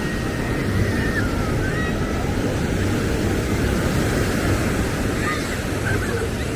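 Ocean surf breaking and washing up the beach, an even, unbroken rush of noise.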